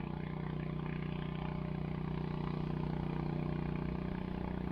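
Steady low motor hum at an even pitch, unchanging throughout.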